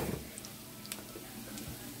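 Pork pieces sizzling faintly in a frying pan, with a couple of light ticks.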